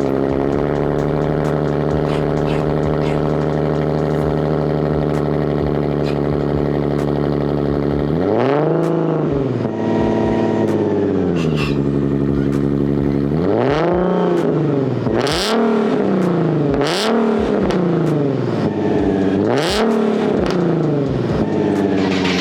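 Nissan 370Z's 3.7-litre V6 running through an aftermarket Tomei exhaust, idling steadily at first. About eight seconds in it is revved up, held for a couple of seconds and let back down, then given a string of quick throttle blips about a second and a half apart.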